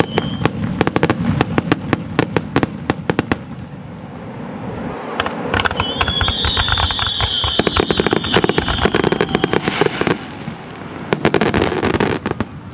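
Aerial fireworks shells bursting, with dense rapid crackling pops in three volleys: one at the start, one about eight seconds in and one near the end.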